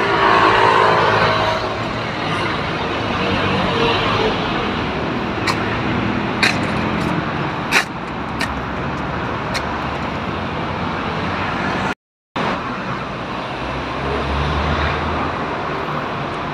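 Steady city street traffic noise from passing cars, with a few sharp clicks around the middle. The sound cuts out completely for a moment about three-quarters of the way through.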